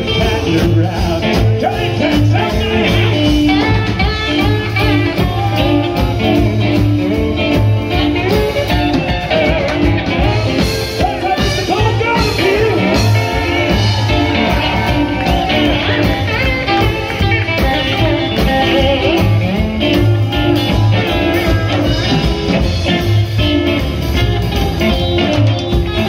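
A live rockabilly band playing: steel guitar, two electric guitars, upright double bass and drums, with a steady pulsing bass beat.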